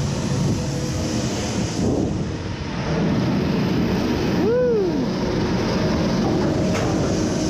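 Kraken floorless roller coaster train rolling out of the station toward the lift hill, a steady rushing rumble of the wheels on the track. About halfway through a brief pitched tone rises and falls once.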